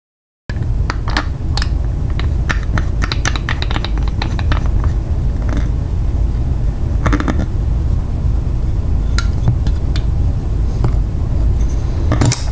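Small metallic clicks and scrapes of a lock pick and tension wrench working in a cheap US Lock pin-tumbler mailbox lock, dense at first and then scattered, over a steady low hum.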